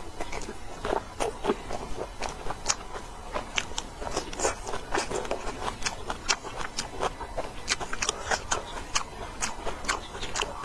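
Kitchen work: irregular sharp clicks and knocks of utensils and cookware, several a second, over a low steady hum.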